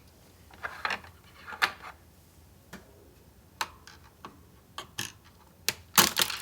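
Scattered sharp clicks and light rattles of plastic parts from a Dell AT-101W keyboard being handled, with two short scrapes about a second in and a louder cluster of clicks near the end.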